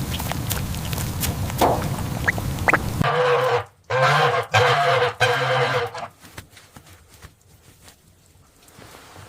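An animal calling four times in quick succession, each call about half a second long, after a few seconds of rustling noise with scattered clicks.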